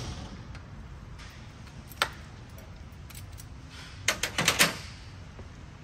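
Metal hand tool clicking and clinking: an 8 mm Allen wrench being handled at the outboard's crankcase drain plug. One sharp click about two seconds in and a quick run of clicks near the end, over a low steady hum.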